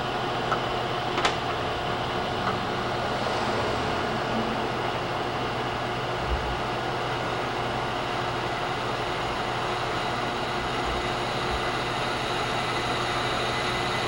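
Milling machine running with a drill bit boring the second spark-plug hole into a Harley-Davidson Shovelhead cylinder head for dual-plug ignition: a steady machine hum. A few light clicks come in the first couple of seconds.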